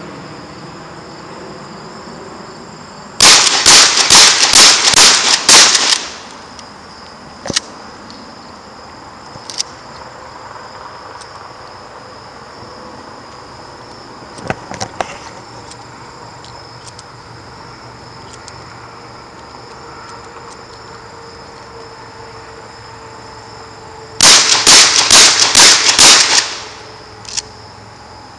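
Pump-action shotgun fired in two rapid strings of about eight shots each, some twenty seconds apart. A few single sharp clicks and knocks fall in the gap between the strings.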